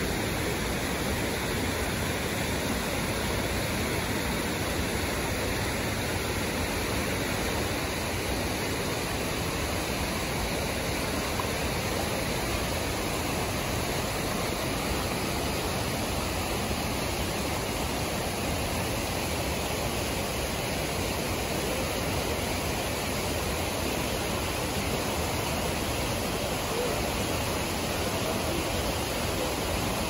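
Fast creek water rushing over rocky rapids, a steady unbroken rush.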